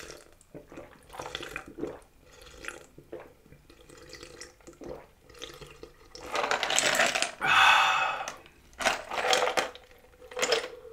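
Drinking from a plastic cup of iced drink: soft handling clicks at first, then, about halfway through, a run of loud gulps and slurps with ice sliding and rattling against the plastic.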